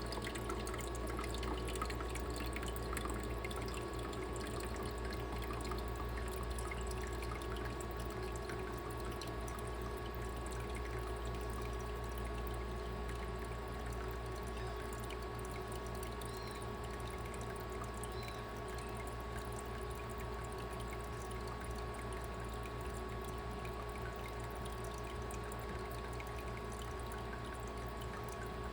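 Water trickling and pouring steadily, over a constant hum.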